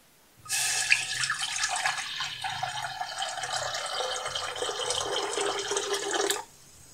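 A stream of water pouring into a metal saucepan, starting about half a second in, its tone slowly dropping, and cutting off sharply near the end.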